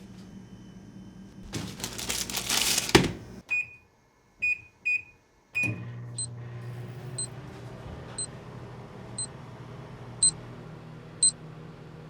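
Microwave oven being set going: a rustle and a sharp clack, four short keypad beeps, then the oven running with a steady low hum and a faint high tick about once a second.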